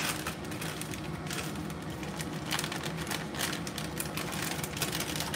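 Irregular clicking and crackling of things being handled on a kitchen bench, over a steady low hum.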